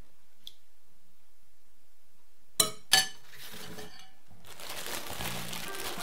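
Two sharp clinks of a metal spoon against a ceramic bowl, then rustling of plastic packaging. Background music comes in about halfway through.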